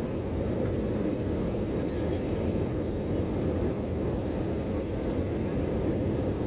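Steady jet engine and airflow noise inside an airliner cabin, heard from a window seat beside the wing-mounted engine as the plane descends to land. It is an even low rush with no changes.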